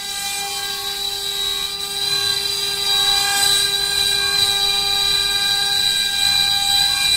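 4-axis CNC wood-carving router running, a steady high-pitched spindle whine with rougher cutting noise beneath it. It gets louder about two to three seconds in.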